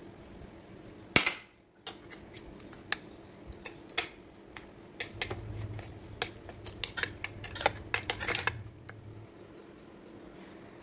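Chopsticks tapping and clicking against a plate while mixing seasoning paste into raw beef. Scattered sharp taps start with one loud click about a second in, grow quicker and denser towards the middle, then stop about a second before the end.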